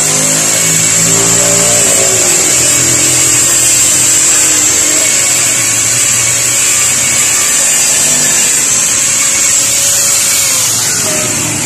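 Corded angle grinder running steadily with a high whine, its disc grinding the edge of a plastic undertail panel to trim it to fit. The whine cuts off near the end.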